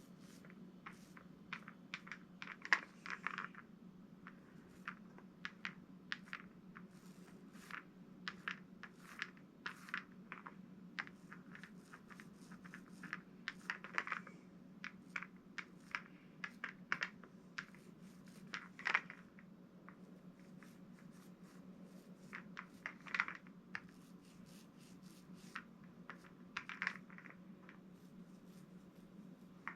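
Foam paint roller crackling and ticking irregularly as it is rolled with light pressure over a sign's lettering, with a few longer sticky crackles, over a steady low hum.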